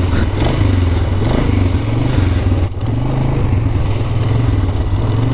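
Quad (ATV) engine running at low speed while riding, its pitch wavering slightly with the throttle, with a brief dip about three seconds in.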